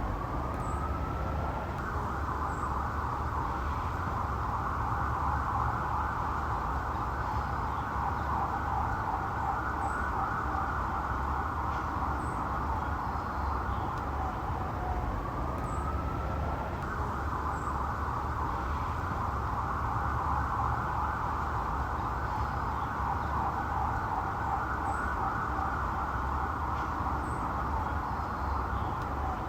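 Police car siren cycling between a short rising wail and a rapid warbling yelp: the wail climbs for under two seconds, then switches abruptly to the fast yelp for about thirteen seconds, and the cycle starts again about halfway through. A steady low rumble runs underneath.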